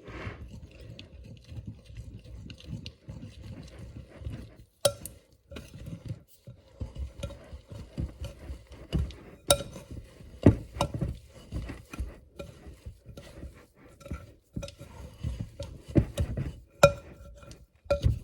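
A utensil stirring flour, water and sourdough starter into a stiff dough in a bowl: irregular scraping, with sharp clinks each time the utensil knocks against the bowl.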